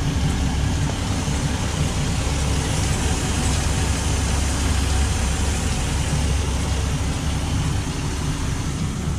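MerCruiser 4.3 MPI V6 inboard boat engine running steadily, heard from the open engine compartment, a low rumble with a broad hiss over it.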